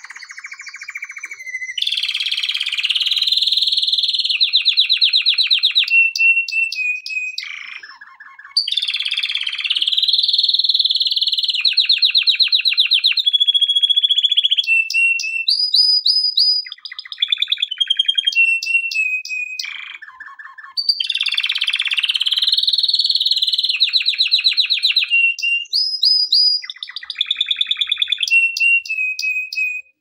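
Male canary singing long phrases of high-pitched, rapid trills and rolls, switching between different repeated notes, with brief pauses about eight and twenty seconds in.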